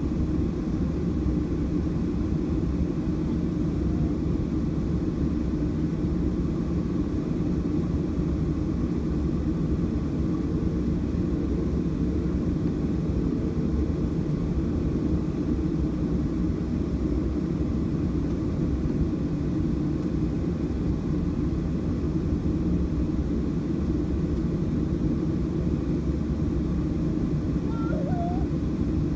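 Cabin noise of a Boeing 737-700 on the ground with its CFM56-7B engines at idle: a steady low hum and rumble that does not change in pitch or level. A brief faint squeak comes near the end.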